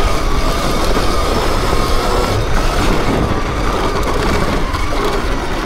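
Sur-Ron electric dirt bike being ridden: a thin electric-motor whine that wavers slowly in pitch over a steady heavy low rumble of tyres and chain.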